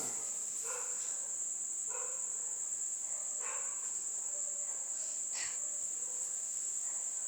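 Crickets chirring in a steady high trill, with a few faint dog barks in between.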